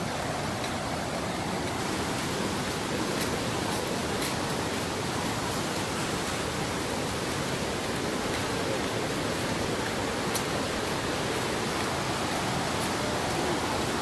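Steady, even rushing of a waterfall's falling water.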